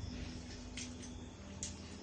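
Faint eating noises from someone eating spicy instant noodles: two short, sharp clicks about a second apart over a low steady hum.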